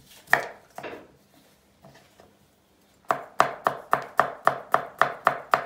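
Chef's knife chopping a carrot on a wooden cutting board: two single cuts, a short pause, then a quick even run of chops at about five a second from about three seconds in.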